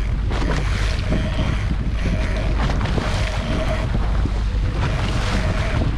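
Wind buffeting the microphone and water rushing past the hull of a boat running at trolling speed, over a heavy low rumble, with a faint steady hum coming and going.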